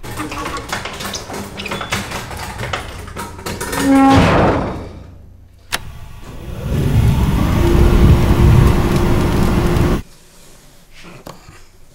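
Cremation furnace being shut and started: clanking and clatter as its heavy door is lowered, a sharp knock, then the burners firing into a loud low rumble with a steady hum, which cuts off suddenly about ten seconds in.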